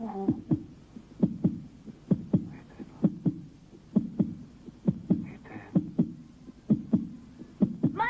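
Dramatic heartbeat sound effect: a steady lub-dub of paired low thumps, a little faster than one pair a second, standing for a failing heart.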